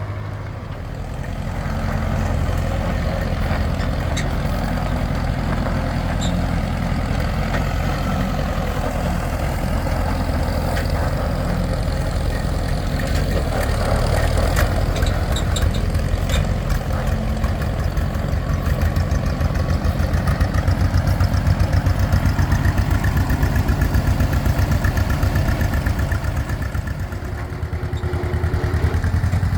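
A heavy engine running steadily at a low, even speed, with a low pulse throughout and a few light ticks about halfway through.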